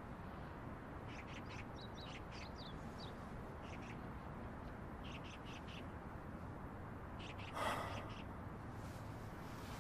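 Small birds chirping faintly in short clusters of quick high chirps, over a quiet steady hiss, with one louder, noisier sound about three-quarters of the way through.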